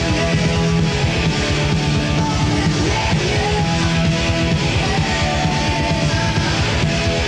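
Rock band playing: electric guitars, bass and drums with a steady beat and held notes.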